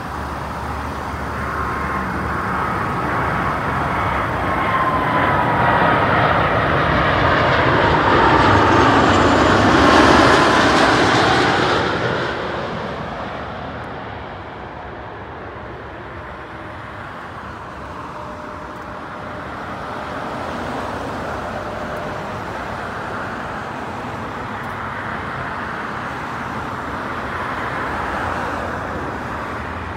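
Airbus A330-343's twin Rolls-Royce Trent 700 turbofans on final approach: a whine that grows louder and falls in pitch as the airliner passes low overhead at about ten seconds, then drops away quickly. A lower rumble swells again near the end as the aircraft is on the runway.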